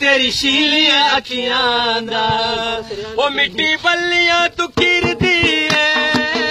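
A man singing a Punjabi/Hindko tappe (mahiya) folk verse unaccompanied, in long, wavering held notes. A few sharp taps come in the second half.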